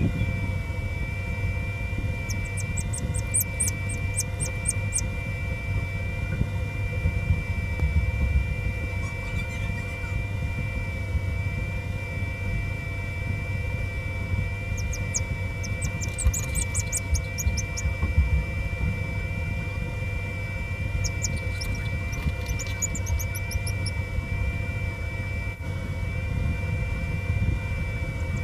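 Homemade egg incubator running with a steady hum of several constant tones over a low rumble. Three short bursts of rapid, very high-pitched chirping come and go.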